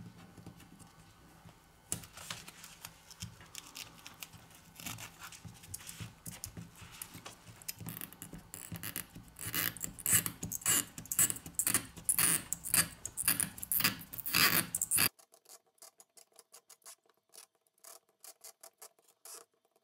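A small hand tool scratching, scraping and clicking against the opened frame and battery of a Xiaomi Redmi Go smartphone, with gloved fingers rubbing on it. The irregular clicks and scrapes grow busier and louder toward the middle, then stop abruptly, leaving only a few faint ticks.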